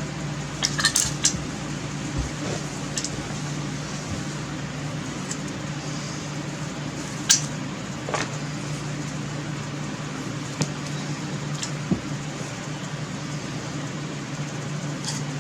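Scattered light clicks and knocks from handling a pistol crossbow and its paracord stringing loops, over a steady low hum.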